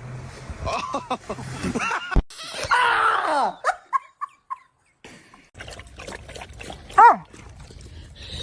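A dog vocalising: short whining cries and a few brief yips, then one loud bark about seven seconds in.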